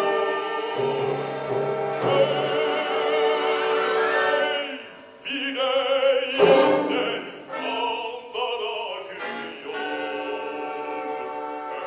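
Background music with a singing voice in long, wavering held notes. It drops away briefly about five seconds in, then comes back.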